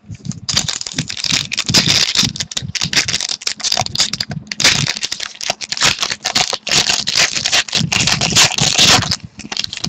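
Trading-card pack wrapper crinkling and tearing as it is opened, with the cards inside being handled; continuous crackly rustling with a short break about four seconds in.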